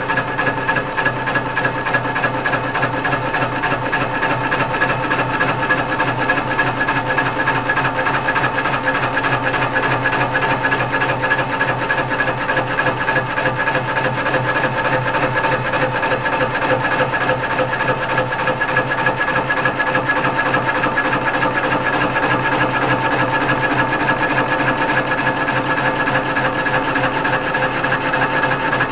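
Metal lathe running steadily while a cutting tool faces a cast iron flywheel: a continuous dry scraping from the cut over the steady hum and whine of the lathe's motor and gears.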